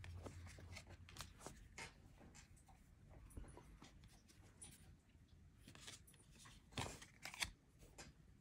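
Faint rustling and light flicks of Topps baseball cards being slid one by one through a stack in the hands, with two louder card flicks about seven seconds in.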